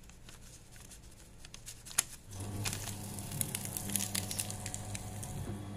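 Fellowes electric paper shredder, its paper-entry sensors just repaired, tested on a small sheet of paper. A sharp click about two seconds in, then the motor starts with a steady hum and the cutters crackle through the paper for about three seconds.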